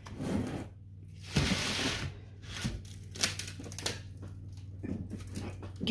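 Damp, crumbly shower-steamer mix of baking soda and citric acid being scooped and packed into a moon cake press: gritty scraping and crunching, loudest about a second and a half in, then a few light clicks and taps.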